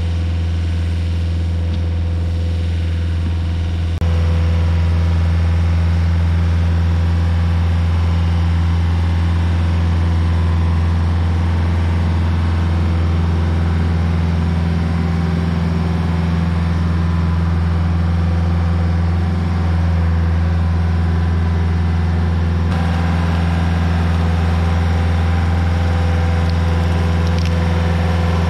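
Rayco RG50 stump grinder's engine running steadily, with a deep steady hum; it gets a little louder about four seconds in.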